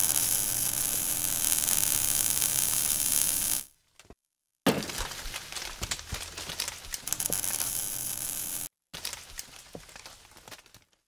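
Designed logo-reveal sound effect: a dense hissing rush for about three and a half seconds, then after a short gap a sudden sharp hit followed by crackling that fades out near the end.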